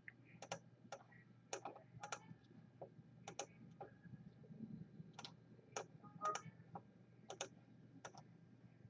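Faint, irregular clicking of a computer mouse, some clicks in quick pairs.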